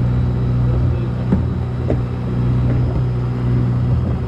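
Fishing boat's engine running steadily with a low, even hum, with two light knocks between one and two seconds in.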